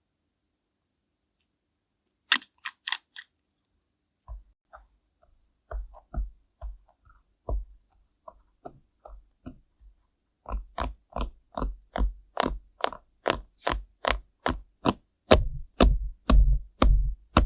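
Short, dry tapping sounds of ASMR-style makeup application: a few sharp clicks a little after two seconds, then irregular taps that settle about ten seconds in into a steady beat of about two taps a second, each with a soft low thump.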